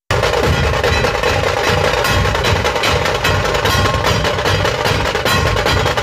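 Dhol-tasha drumming: a fast, dense run of drum strokes on the dhol and tasha that starts abruptly.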